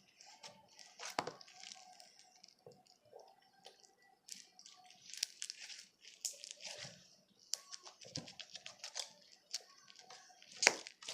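Homemade slime being squished and poked by hand, making a string of small crackles and clicks, with one sharp, big pop near the end as an air pocket bursts.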